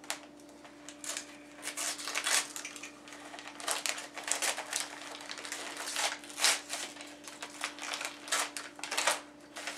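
Wrapping paper and tissue paper being torn and crinkled by hand, in quick irregular rips and rustles that start about a second in.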